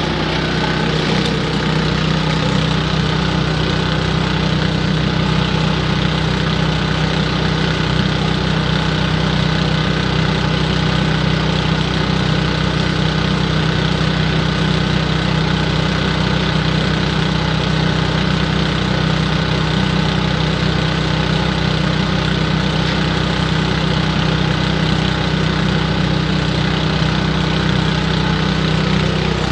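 Garden leaf vacuum's engine running steadily at one constant speed.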